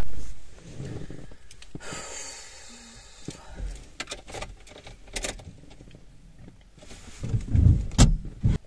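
Irregular rustling and handling noise with scattered sharp clicks and knocks, starting with a sudden loud burst and ending with a few low thumps.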